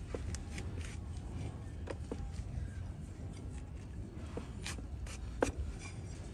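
A broad cleaver-like hoof knife paring and scraping a donkey's hoof: several sharp cutting strokes a second or two apart, the loudest about five and a half seconds in, over a low rumble.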